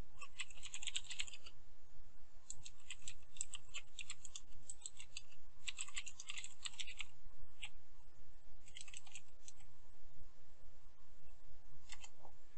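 Typing on a computer keyboard: several quick runs of keystrokes with short pauses between them, and a single key press near the end.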